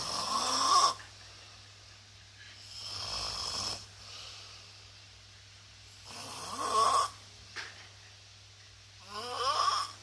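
A person snoring heavily in sleep: four rasping snores about three seconds apart, the second one softer than the others.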